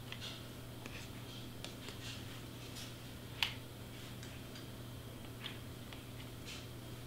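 Faint scattered clicks and ticks of a hot glue gun being handled and its trigger squeezed, with one sharper click about three and a half seconds in.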